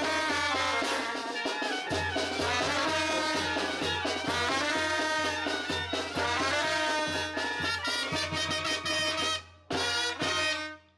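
Brass band music with trumpets and trombones over a steady low beat; it breaks off briefly near the end, plays one last short phrase and stops.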